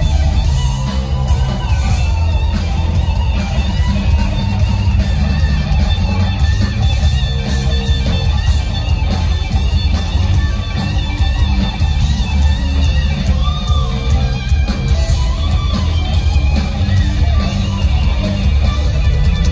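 Rock trio playing live, loud and steady: electric guitar over electric bass and a drum kit, with a heavy, boomy low end as heard from the audience in the hall.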